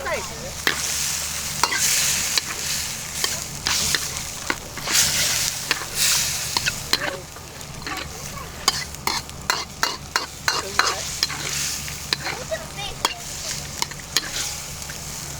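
Food sizzling as it fries in a pan, with frequent sharp clicks and scrapes of a utensil stirring and tapping against the pan, busiest in the middle stretch.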